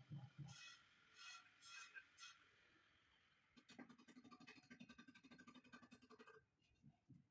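Faint scraping of a small steel trowel working mortar at the edge of a marble floor tile: a few separate scrapes, then a run of quick, rapid strokes from about three and a half seconds in to about six.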